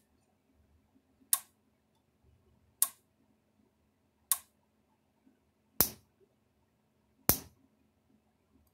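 Fi-Shock XP-15 electric fence charger firing its roughly 9,000-volt pulses, each one arcing with a sharp spark snap where a screwdriver bridges the earth terminal to the full-power terminal. The snaps come evenly, about once every second and a half, five or six in all, the later ones the loudest.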